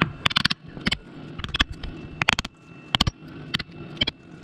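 Hammer tapping on a block of wood to drive a crankshaft repair sleeve onto a Subaru crankshaft until it seats flush: a steady series of sharp knocks, a little under a second apart.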